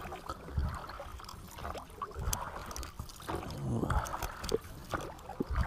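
A flat blade scraping and nicking grooves into a hard block of pressed oilseed cake bait, with scattered light clicks. Soft water sounds lie underneath.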